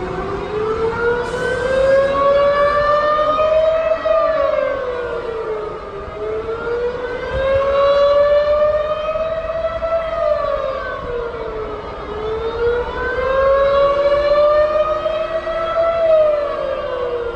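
Civil defence warning siren wailing: its pitch rises slowly for about four seconds, then drops over about two, three times over.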